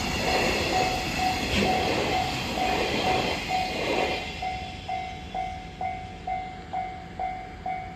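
Freight train wagons rolling over a level crossing with a heavy rumble and wheel clatter, which fades away about halfway through. Through it and after it, the level-crossing alarm dings steadily about twice a second.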